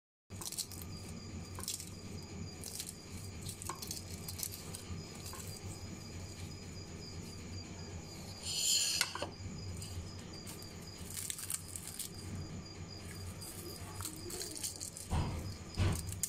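Low steady hum with a faint, high, evenly pulsing chirp, like a cricket. A short rustle comes about halfway, and a few crackles and knocks near the end as crisp fried kachori pastry is pressed and broken by hand.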